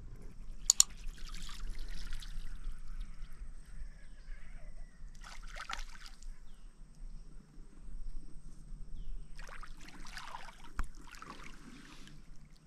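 Water splashing and trickling in short bursts: about a second in, near six seconds and again around ten to eleven seconds, with a sharp click near the start.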